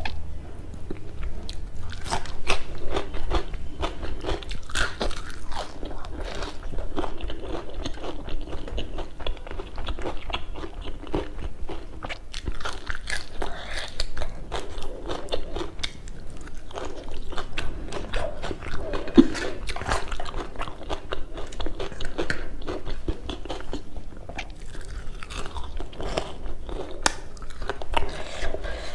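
Close-miked chewing with frequent crisp crunching bites as a person eats raw chive stalks and onion with rice and curry. The crunches come as many sharp clicks throughout, one sharper snap a little past the middle.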